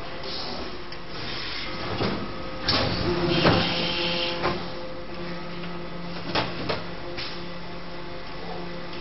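Injection moulding machine working a two-colour toothbrush mould: a steady machine hum, with a burst of hissing and clatter about three to four seconds in and two sharp clicks a little later.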